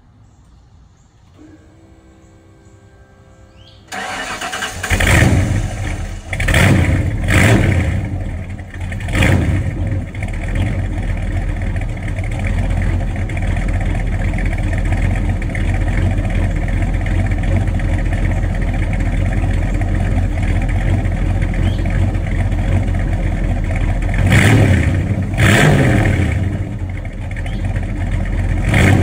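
1986 Ford F-150's rebuilt 351 Windsor small-block V8, with a Comp Cams XR264RF-HR camshaft, shorty headers and Flowmaster 40 series mufflers, starting about four seconds in and revved in four quick blips. It then idles steadily for about twelve seconds before being blipped twice more near the end.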